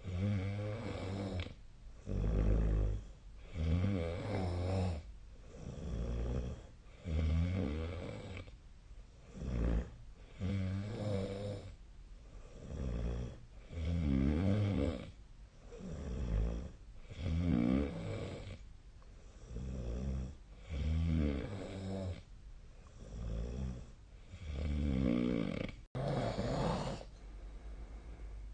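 A sleeping person snoring steadily, one snore about every two seconds with quiet gaps between. A single sharp click comes near the end.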